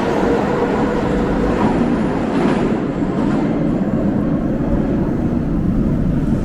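Moscow Metro train running along the rails, a steady rumble with hiss; the higher sound dies away about halfway through, leaving the low rumble.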